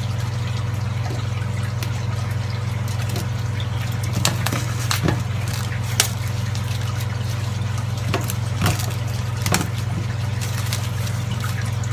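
Protective plastic film and masking tape being peeled off an acrylic box, giving scattered crackles and snaps over a steady low hum.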